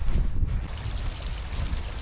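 Strong wind buffeting the microphone over splashing, lapping water.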